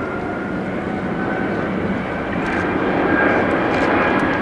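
Airbus A380's four Rolls-Royce Trent 900 turbofans during a slow, low flypast: a steady jet rumble with a thin whine that rises slightly in pitch, growing a little louder about three seconds in. Relatively quiet for so large an airliner.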